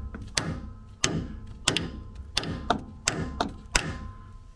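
Hammer striking an install tool to drive a plastic Broncbushing into a Ford Bronco's steering rack housing: a series of sharp taps, about ten in all, a little under two a second at first and then quicker.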